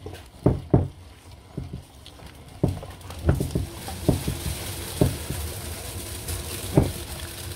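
A wood fire being lit in a smoker's firebox: irregular knocks and thumps, with a hissing noise building from about two and a half seconds in as the fire starts to take.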